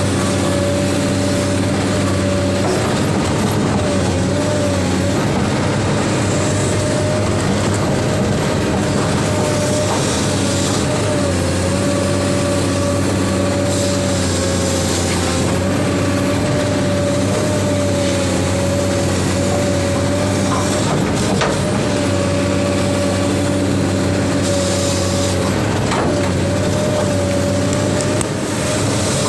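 Heavy machine's diesel engine running steadily at constant speed, with a steady whine over it that wavers slightly in pitch.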